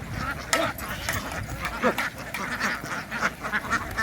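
A large flock of farm ducks quacking and chattering all at once in a dense buzz, like a swarm of bees, with frequent sharp knocks and clatters mixed in.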